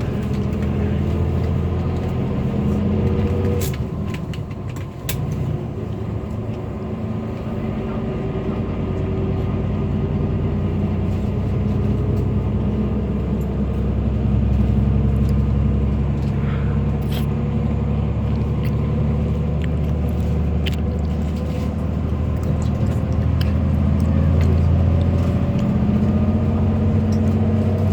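Coach bus engine and road noise heard inside the passenger cabin: a steady low rumble whose engine note slowly rises and falls as the bus drives on. A few light clicks and taps come through now and then.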